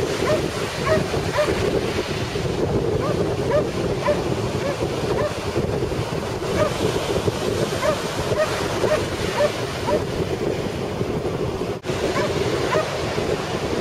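Ocean surf breaking and washing up the beach, with wind buffeting the microphone. The sound drops out for an instant near the end.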